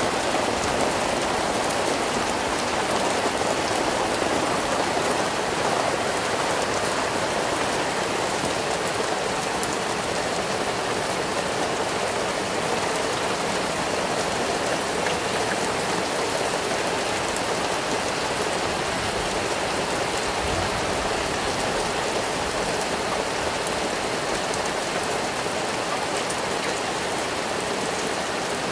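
Rain falling steadily: a dense, even hiss of drops that does not let up.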